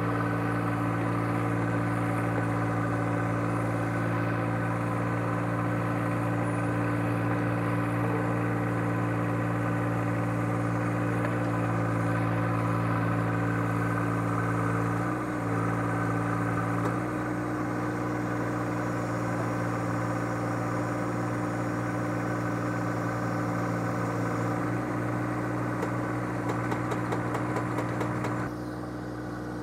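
John Deere 1025R compact tractor's three-cylinder diesel engine running steadily, driving a loader-mounted hydraulic post-hole auger as it bores into the soil. There is a brief dip in pitch about halfway through, and the sound gets quieter near the end.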